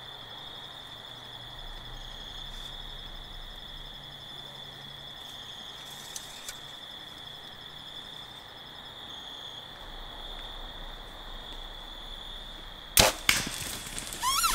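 A steady insect chorus, then near the end a bow shot: two sharp cracks close together as the arrow is loosed and its single-bevel broadhead strikes the whitetail buck's shoulder, hitting solid bone.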